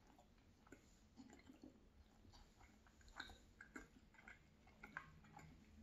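Faint, close-miked chewing of roasted potato cubes: soft, irregular mouth clicks that come thicker from about a second in.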